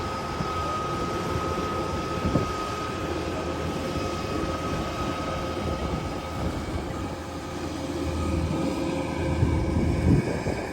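Kubota DC-108X rice combine harvester running steadily, its engine noise carrying a thin steady whine, with a couple of short knocks about two seconds in and near the end.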